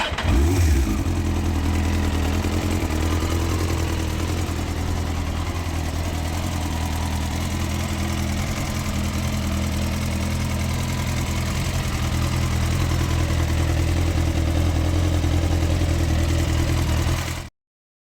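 Honda CBR954RR inline-four motorcycle engine catching just after being started and then idling steadily, until the sound cuts off suddenly near the end. The owner links this engine's noise to piston slap from scored AluSil cylinders.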